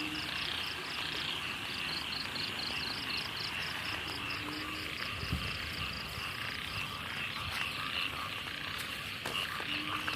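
A chorus of frogs calling over flooded rice fields after rain: a rapid pulsed trill that stops about a third of the way in, over a steady high-pitched drone, with three short low calls spread through.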